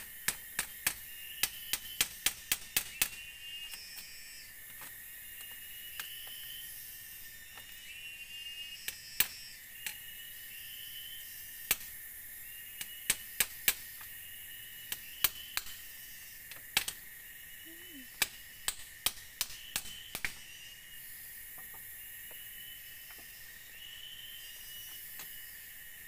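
Irregular sharp knocks and clicks, often in quick runs, from hands working at a bamboo wall. Forest insects drone steadily behind them, with a short chirp repeating every second or two.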